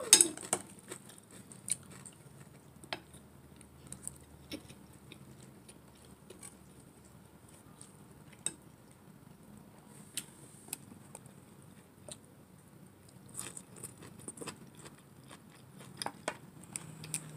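Close-up eating sounds: chewing and biting through a meal of instant noodles with chicken. Scattered sharp clicks, the loudest right at the start, come from cutlery against the bowl.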